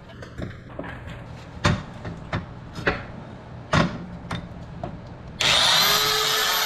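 Knocks and clinks of a steel transmission input shaft and a tool being handled on a steel press plate, then, about five seconds in, an air belt sander starts up suddenly and runs steadily with a high whine that rises and then holds. It is about to sand the leading edge of the input shaft smooth.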